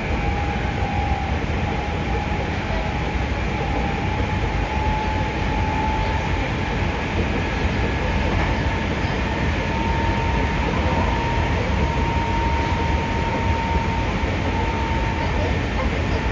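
Hankyu 5300 series resistance-controlled electric train running, heard from inside the passenger car: a steady low rumble of wheels on rail with a faint whine that rises slightly in pitch and then holds.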